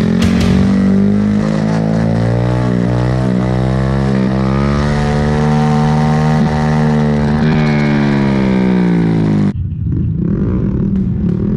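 Small single-cylinder Honda Grom motorcycle engine running, heard from a camera mounted on the bike. The revs rise a little, hold steady for several seconds, then fall away, and near the end the sound cuts abruptly to a rougher engine sound heard from farther off.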